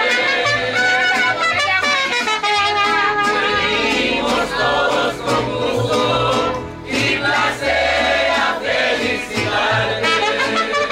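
Live mariachi band playing and singing. Trumpet, guitars and a guitarrón accompany several voices singing together.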